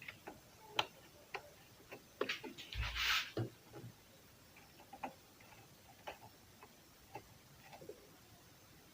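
Scattered light clicks and taps of a domestic sewing machine's parts being handled while lint is cleaned out with cotton swabs, with a brief scuffing rustle and a soft bump about three seconds in.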